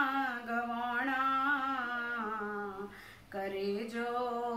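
A woman singing a Punjabi poem unaccompanied, holding long drawn-out notes that glide slowly, with a short pause for breath about three seconds in.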